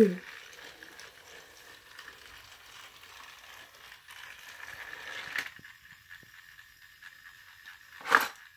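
Battery-powered Thomas toy train set running faintly, with a light mechanical whir and rattle that stops with a click about five seconds in. A sharp plastic clack follows near the end as the toy is handled.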